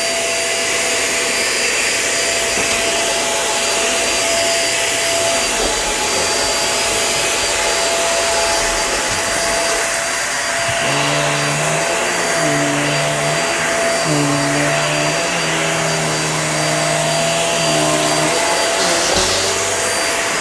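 Hoover React QuickLift upright vacuum running steadily with a constant high motor whine, picking up rice from a hard floor, its brush roll slowed by the FloorSense feature for the hard surface.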